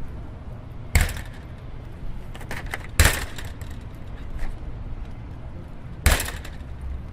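Metal gate clanging: three loud impacts, roughly two and three seconds apart, each ringing briefly, with a few lighter knocks between, over a steady low background rumble.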